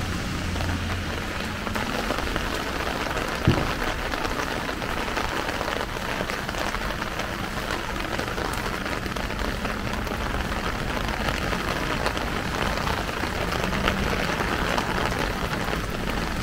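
Steady rain falling on a plastic umbrella held overhead, with a single sharp thump about three and a half seconds in.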